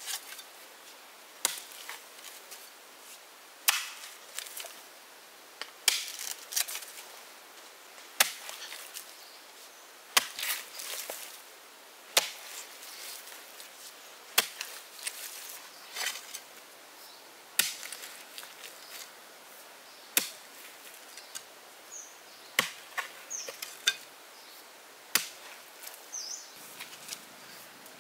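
Wood being chopped by hand: sharp blade strikes land about every two seconds, with lighter knocks between them.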